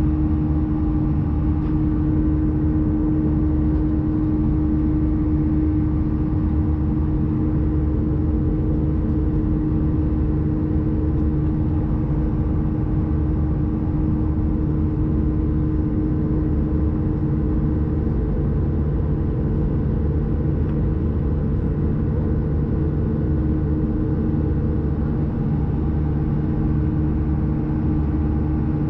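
Airbus A320-214 cabin noise in climb: the steady drone of its CFM56 turbofan engines with a steady howl from the left engine on top. The howl is strongest in the first few seconds and eases slightly after.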